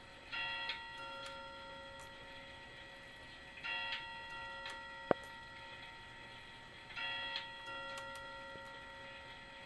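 Sessions dual-rack chime clock sounding its chime: three ringing clusters of several notes, about three seconds apart, each fading slowly, with the movement ticking between them. One sharp mechanical click about five seconds in.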